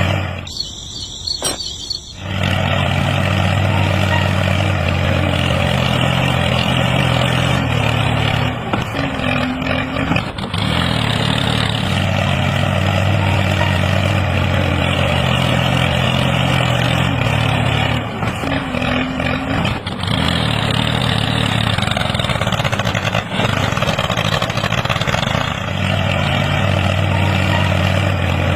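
Engine of a miniature DIY tractor-bulldozer running steadily, quieter for the first two seconds and then loud and even.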